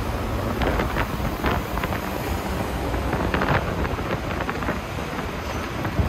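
Wind buffeting the microphone and road noise while riding a scooter through traffic, a steady rush with a few brief knocks.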